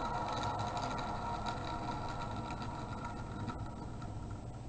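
Unbalanced Batman fidget spinner spinning down on a wooden chair seat: a faint steady whir with light rattling that fades and stops shortly before the end.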